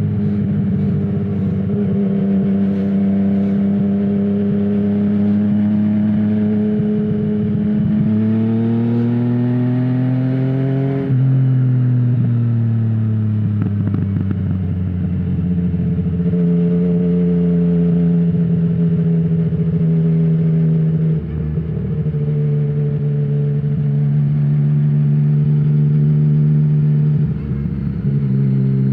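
Yamaha MT-09's 847 cc inline-three engine through an Akrapovic full-system exhaust with no dB killer, heard from the rider's seat on the move. It runs at a steady pitch, climbs in revs for a few seconds, eases off, then holds lower with two brief drops in level, and climbs again near the end.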